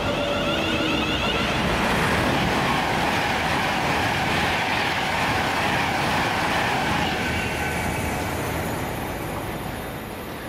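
A train passing, a steady spread of wheel-on-rail noise that fades over the last few seconds as it moves away.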